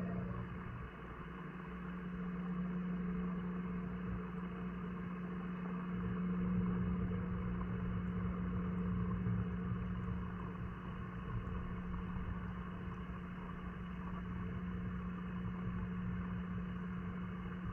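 Steady hum of a pond pump running, heard underwater, a low constant tone with a hiss above it.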